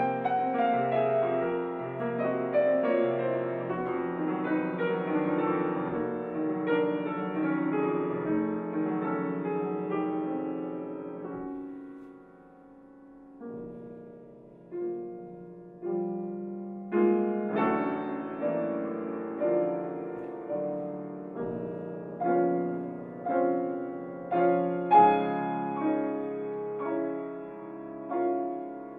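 Grand piano played solo in a classical piece: a dense flowing passage with a falling line, thinning to a soft lull about twelve seconds in, then building again with accented chords struck about once a second.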